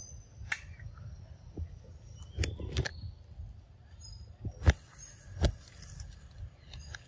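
A handful of sharp knocks and snaps, the loudest just past the middle, over a few faint, short, high chirps.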